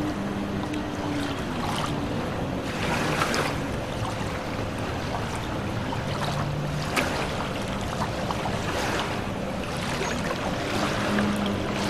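Steady wind-and-water noise at a marina dock, swelling every couple of seconds, with a low hum underneath.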